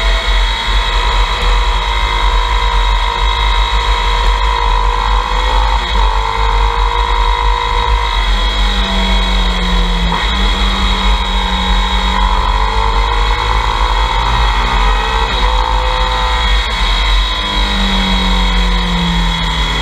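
Motorcycle engine running at road speed, its pitch rising and falling through the bends, under a heavy wind rumble on the camera microphone.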